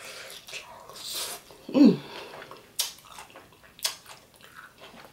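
Close-miked chewing and wet mouth sounds of someone eating a mouthful of sautéed cabbage, with a short falling "mm" about two seconds in and a few sharp clicks after it.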